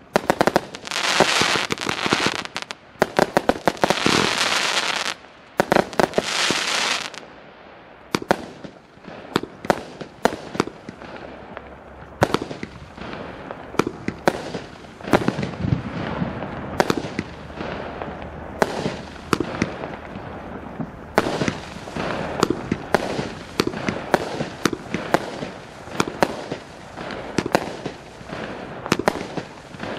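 Fireworks battery of 25 mm tubes firing: a rapid string of launch reports and bursting shells. In the first seven seconds it breaks into thick stretches of crackling, then thins to single shots from about eight to twelve seconds in before it picks up again into dense volleys.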